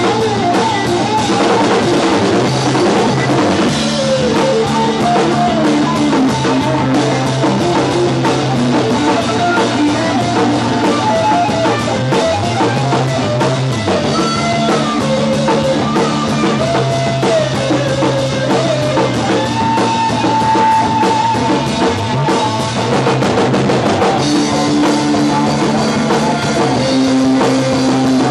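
Rock band playing live: an electric guitar lead with bent notes and one long held note about two-thirds of the way in, over electric bass and a drum kit.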